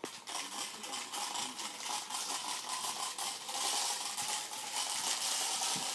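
A child's plastic popper push-car being pushed along carpet, its balls clattering against the plastic dome in a dense, continuous run of rapid clicks.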